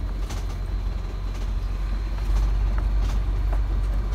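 A camper's engine and tyres rolling slowly over a dirt track, heard from inside the cab: a steady low rumble that grows louder about two seconds in, with a few faint clicks.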